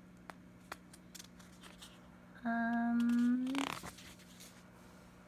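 A woman hums a single thoughtful "hmm" for about a second, a little over two seconds in, followed by a short rustle of a paper sheet being handled. A faint steady low hum lies underneath.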